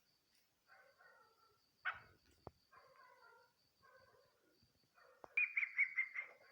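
Chukar partridge calling: a few soft clucking phrases, then near the end a quick run of about six loud, evenly spaced chuk notes.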